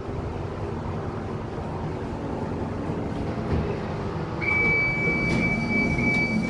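Steady low mechanical hum and rumble inside an old passenger lift car. About two-thirds of the way in, a steady high-pitched electronic beep starts and holds for about three seconds.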